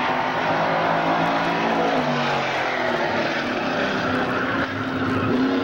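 Several stock car engines running on the track, heard together as a steady din; one engine's pitch drops about two seconds in and another rises near the end.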